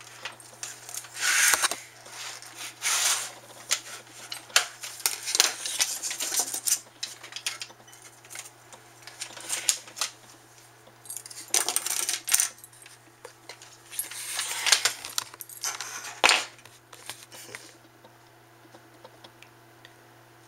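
Metal and plastic parts of a CD-ROM drive being taken apart by hand, clinking and rattling in irregular bursts and dying down near the end, over a steady low hum.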